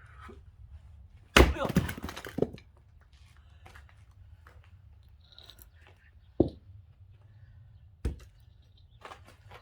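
Firewood being split with an axe: one heavy blow about a second and a half in, with the wood cracking and splintering for about a second, then two shorter single knocks later on.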